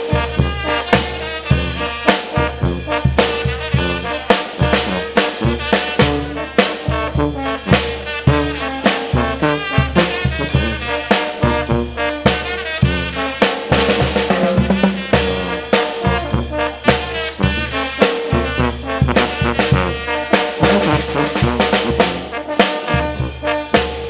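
Mexican brass band (banda de viento) playing: trumpets and trombones carry the tune over a steady drum beat.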